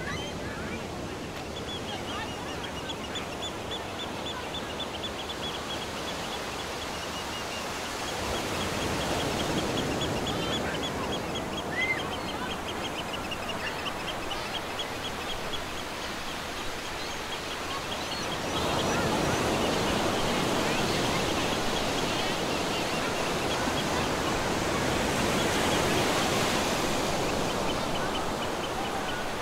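Sea surf and wind-blown noise that grows louder about a third of the way in and again past the middle. Over it, a bird calls a long, even run of rapid high notes that stops a little past halfway.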